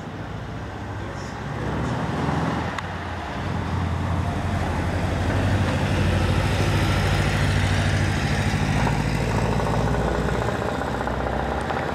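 Low engine rumble with a droning hum that grows louder from about two seconds in and then holds steady.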